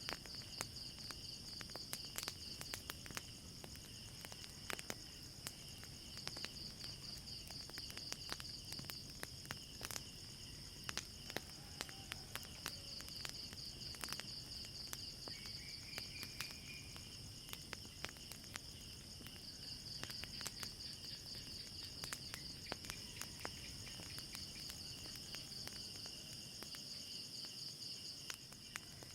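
Night insects, crickets, chirping in a steady high pulsing trill, with a fire crackling in sharp, irregular pops throughout.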